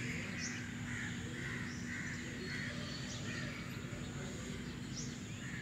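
Crows cawing faintly in a loose repeated series, with a few brief high bird chirps.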